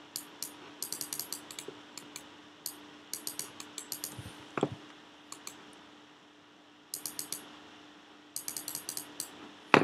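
Quick runs of small clicks from a computer input device, several to a second in short bursts, over a low steady hum. There are two soft thumps, one just before the middle and one at the end.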